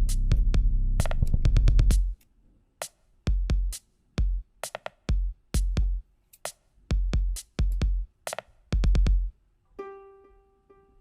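Hip-hop instrumental beat with drum-machine kicks, snares and hi-hats over a heavy bass line; the bass drops out about two seconds in, leaving sparse drum hits with deep kicks, and a plucked melody enters near the end.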